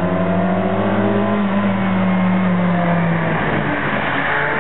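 VW Golf Mk2 hatchback engine running at steady revs on wet tarmac; about three and a half seconds in the engine note drops, and the tyres start to squeal near the end as the car slides into the corner.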